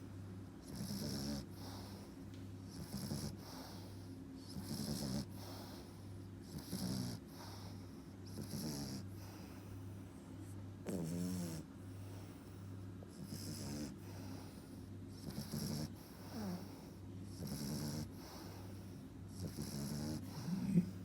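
French bulldog puppy snoring in its sleep: a rattling snore with each breath, about one every two seconds.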